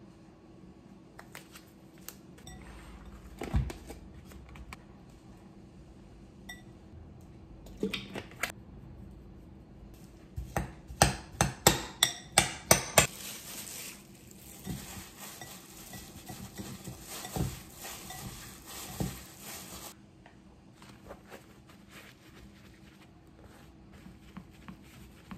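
Metal spoon clinking against a glass mixing bowl while minced pork is seasoned and stirred: a knock about three seconds in, a quick run of sharp clinks, about four a second, a little before halfway, then a softer stretch of stirring.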